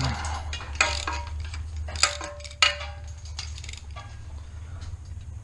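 Hand tools clinking and knocking on metal while the exhaust header is unbolted from the engine: sharp metallic knocks about one, two and two and a half seconds in, the later ones ringing briefly, over a steady low hum.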